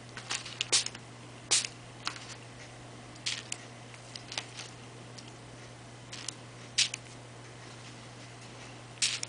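Short spritzes from a small pump spray bottle of diluted Adirondack Color Wash ink, about a dozen quick squirts in irregular bursts, some in quick pairs.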